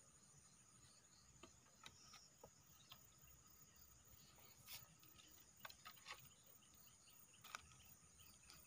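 Near silence with a faint, steady high trill of insects, crickets most likely, and a few scattered soft clicks.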